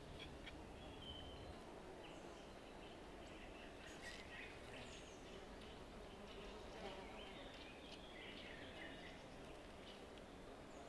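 Faint woodland ambience: scattered bird chirps and a buzzing insect, with a few faint clicks.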